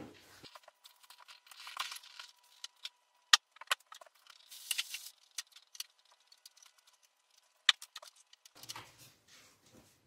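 Plastic parts of a split air conditioner's indoor unit clicking and clattering as they are unclipped and pulled out, with short bursts of plastic rustling between the clicks.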